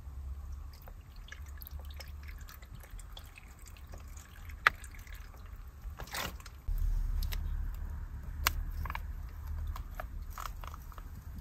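Meat and other ingredients being put into a hot pot: small clicks of utensils and wet, dripping sounds, with one sharp click about halfway. A low rumble comes in and stays from about seven seconds in.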